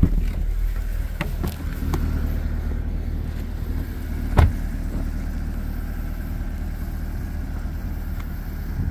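A car door of a 2023 Corvette convertible opening with a few clicks and then shutting with a single loud thud about four and a half seconds in, over a steady low rumble.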